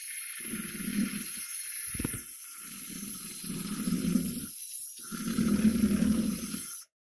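Electric drill with a beater attachment running steadily inside a pumpkin, churning the wet guts in low rumbling bursts as it is pushed in and out. The drill stops abruptly near the end.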